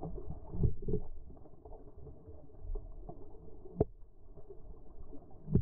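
Muffled underwater rumble of moving water picked up by a GoPro in its waterproof housing, dull and with no high sounds, with a faint click partway through and a sharper knock near the end.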